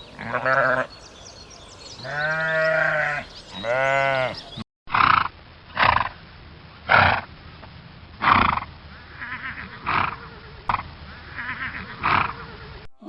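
Bleating livestock: three long, wavering calls. After a sudden cut comes a run of short, sharp calls from another animal, about one a second.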